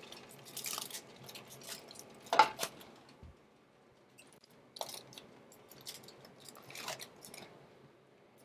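Aluminium foil crinkling in short, faint crackles as hands grip and shift a foil parcel on a roasting tray; the loudest crackle comes about two and a half seconds in.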